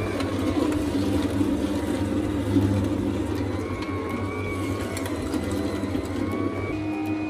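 Vertical slow juicer running, its auger pressing pomegranate arils: a steady low mechanical hum.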